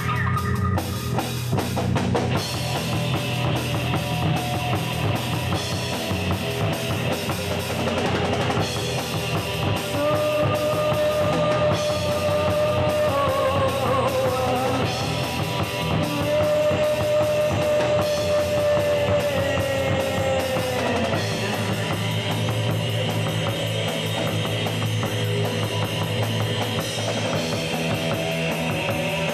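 Live rock band playing: drum kit and electric guitar. A long, slightly wavering held note stands out above the band from about ten seconds in until about twenty seconds in.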